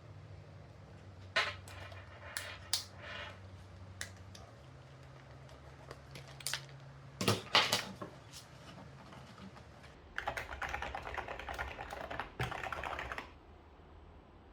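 Typing on a large-key computer keyboard: a handful of separate key presses, then a quick run of rapid keystrokes for about three seconds near the end.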